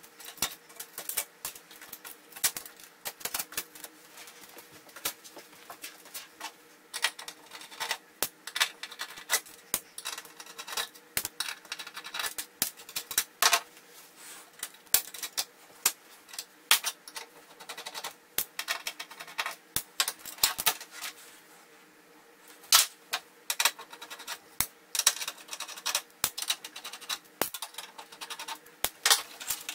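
Irregular clicks, taps and light metallic clatter from hands working on the back of a flat-panel TV: handling screws, circuit boards and the metal chassis during disassembly.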